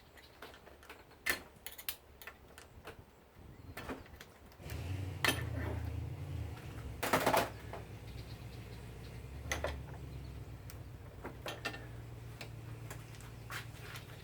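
Scattered small metallic clicks and taps of a brass water heater valve and its spring-loaded parts being worked apart by hand, with a louder rattle about seven seconds in. A steady low hum starts about five seconds in.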